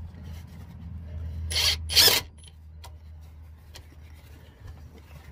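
Power drill driving a hose clamp's screw in two short bursts, about a second and a half in and again at two seconds, tightening the clamp onto the hose.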